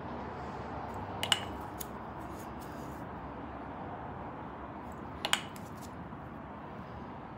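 Wooden kendama ball clacking against the wooden ken: a quick cluster of two or three sharp knocks about a second in, a lighter tick soon after, and another cluster of two or three knocks about five seconds in, over a steady faint room hiss.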